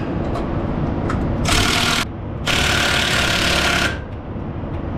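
Cordless impact wrench running in two bursts, a short one of about half a second and then a longer one of about a second and a half, driving in the cage bolt of a trailer's spring brake chamber to cage the brake spring so the brake is released without air pressure.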